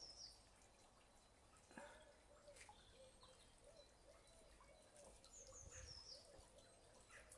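Faint garden birdsong: a small bird twice gives a short, high, descending twittering phrase, about five seconds apart, with a lower wavering run of calls from another bird in the second half.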